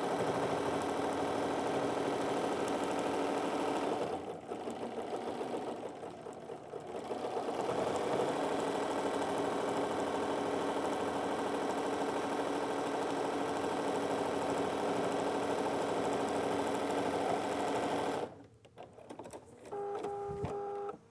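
Bernina sewing machine stitching steadily through fabric and piping. It eases off for a few seconds about four seconds in, then runs on and stops a few seconds before the end.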